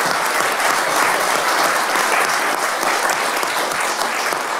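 A roomful of people applauding, a steady dense patter of many hands clapping.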